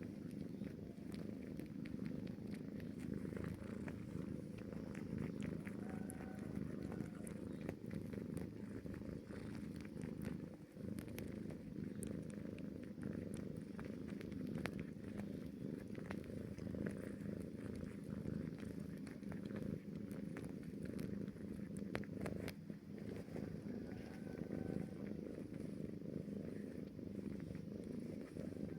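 Kitten purring, a steady low rumble that goes on without a break.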